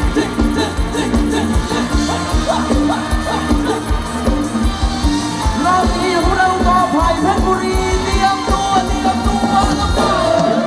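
Live band playing Thai ramwong dance music: a singer's voice over a steady drum beat and melody instruments.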